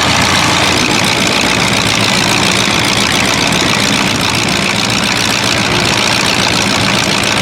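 Demolition derby cars' engines idling together, a loud steady engine noise with no sharp impacts.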